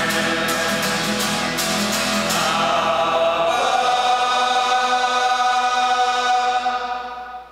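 Men's choir singing with two strummed acoustic guitars. The strumming stops a couple of seconds in, and the voices hold a long final chord that fades out near the end.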